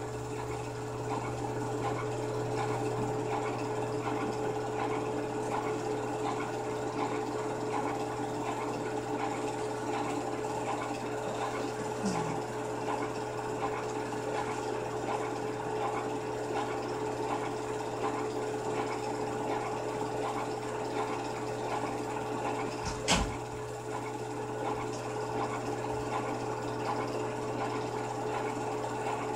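Film projector running: a steady motor hum with the fast, even clatter of the film transport. A single sharp knock about 23 seconds in.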